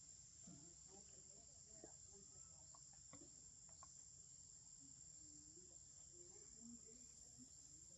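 Faint, steady high-pitched drone of forest insects.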